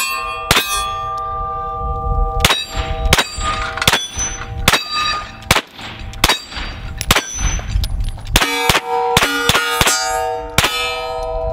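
A string of 9mm shots from a Smith & Wesson M&P FPC folding carbine, spaced out in the middle and coming faster near the end. Steel targets ring with a clear, held tone between the shots as they are hit.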